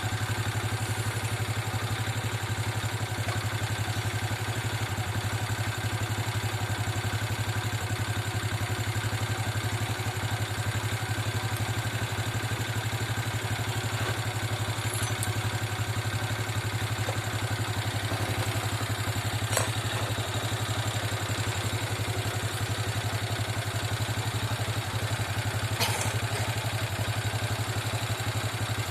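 A small engine idling steadily, with a fast even pulse and no change in speed. A couple of light clicks come in the second half.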